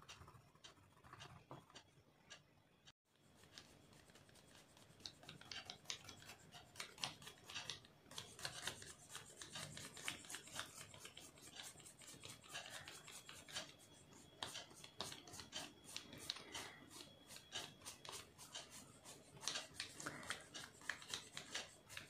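Wax crayon scribbling on thick paper. After a brief dropout about three seconds in, a dry paintbrush brushes rapidly back and forth over the waxy crayoned paper to sweep off loose crumbs of crayon.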